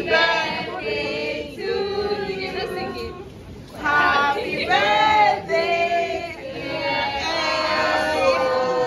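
A group of people singing together without accompaniment, women's voices most prominent: a birthday song. The singing dips briefly about three seconds in, then picks up again.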